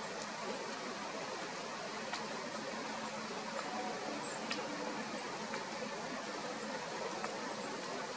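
Steady outdoor background noise, an even hiss, with a couple of faint clicks partway through.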